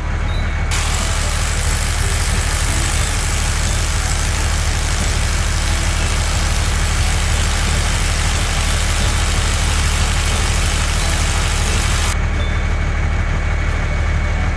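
Vehicle engine sound effect running steadily with a low hum; a hiss laid over it stops about twelve seconds in while the engine carries on.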